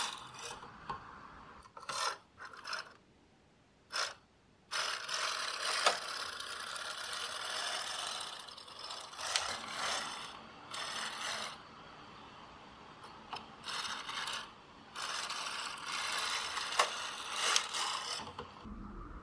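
Brother KA-8210 intarsia carriage pushed by hand across the metal needle bed of a Brother KH-910 knitting machine, knitting row after row. It makes a sliding, clattering sound in passes of one to a few seconds, with sharp clicks and short quiet pauses between passes.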